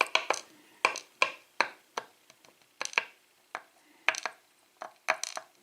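Irregular small metallic clicks and taps, about a dozen: loose pin-tumbler lock pins from a disassembled lock being handled and moved about on a hard surface.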